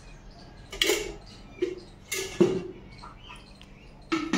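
A handful of short, sharp clinks and knocks of kitchen utensils: a metal spoon and a steel oil can against an earthen cooking pot, spaced irregularly.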